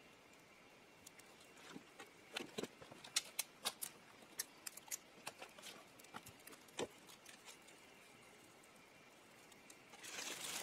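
Small fire of damp leaves, twigs and toilet paper crackling as it catches: scattered sharp pops and snaps for several seconds, then a soft rushing noise builds near the end.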